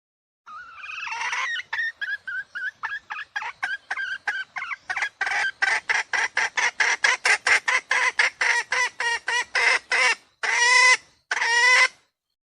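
Junglefowl calling: a run of short clucks that grows quicker and louder, ending in two longer, drawn-out calls. It is a recorded call of the kind played as a lure for wild junglefowl.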